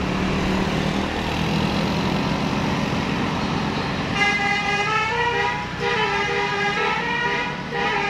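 Road vehicles running on a bend, then about four seconds in a bus's 'telolet basuri' multi-tone horn starts playing a tune in quick stepped notes.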